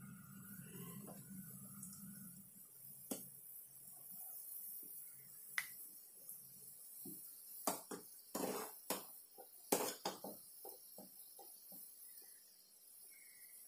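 Gulab jamun dough balls frying in a steel pan of hot oil and ghee: a faint steady sizzle, with scattered sharp clicks and knocks, a burst of them about eight to ten seconds in, then a run of small ticks.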